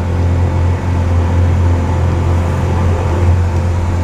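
Engine of a Lamborghini-styled boat-car running steadily at slow speed, a constant low drone with no change in pitch.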